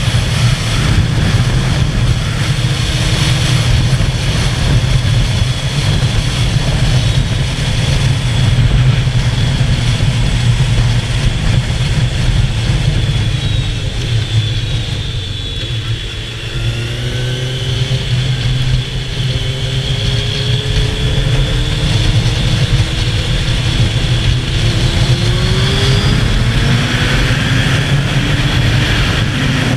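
Suzuki sports bike riding at speed, heard from the rider's position with heavy wind noise over the microphone and the engine underneath. Around the middle it eases off and goes quieter, then the engine rises in pitch again in several steps as the bike accelerates.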